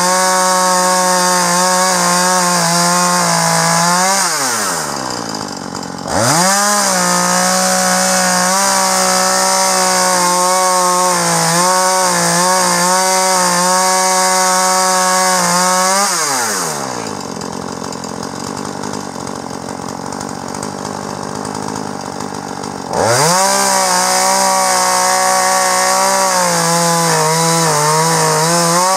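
Gas chainsaw cutting along the length of a log in a lumber cutting guide, running at full throttle in the cut. Twice the throttle is let off and the engine falls to idle, for about two seconds around five seconds in and for about six seconds from around sixteen seconds, each time revving sharply back up into the cut.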